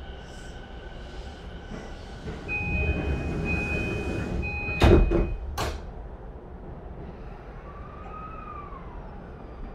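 Sliding doors of a JR E235-series commuter train shutting at a station stop: a steady electronic tone for about two seconds, then two sharp thuds a little under a second apart as the doors close.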